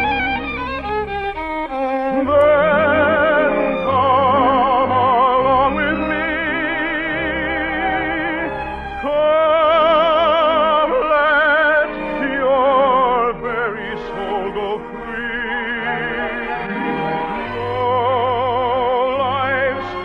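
Operatic singing with wide vibrato, sustained phrases over a light orchestral accompaniment, in the thin, bandwidth-limited sound of an early-1950s radio broadcast recording.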